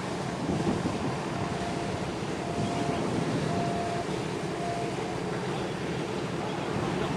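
Wind buffeting the microphone over a steady outdoor harbour rush. A faint beeping sounds four times, about a second apart, in the first part.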